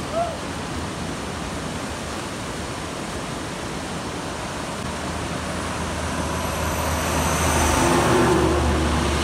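Steady rush of a fast mountain river, with a Mahindra Bolero SUV's diesel engine approaching and growing louder from about five seconds in, loudest near eight seconds.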